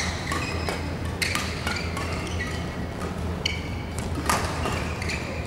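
Badminton play: a few sharp taps of racket on shuttlecock spaced a second or more apart, with short high squeaks of shoes on the court mat, over a steady low hum.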